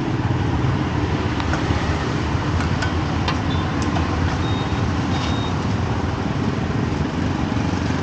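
Steady low rumble of street traffic and running engines, with a few faint clicks and two short high beeps about halfway through.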